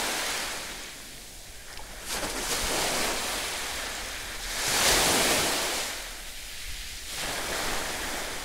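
Sea waves breaking and washing onto a shallow beach, coming in swells every couple of seconds, the loudest about five seconds in.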